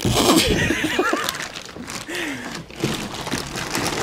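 Plastic wrap rustling and crinkling as it is pulled off a boxed inverter, with a man's short wordless vocal sounds, loudest in the first second and again briefly about two seconds in.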